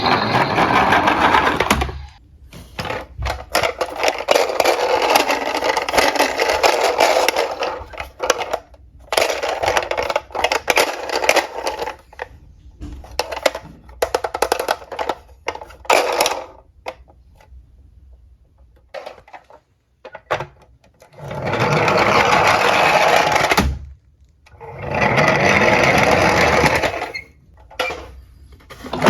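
Diecast toy cars rolling and rattling down a slope, in several runs of a few seconds each, separated by short pauses.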